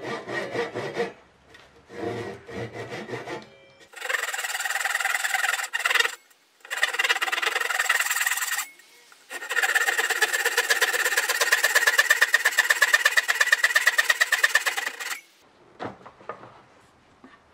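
Hand saw cutting a tenon in a block of wood: a few softer strokes at first, then three runs of quick, rasping back-and-forth strokes, the longest in the second half, stopping abruptly near the end.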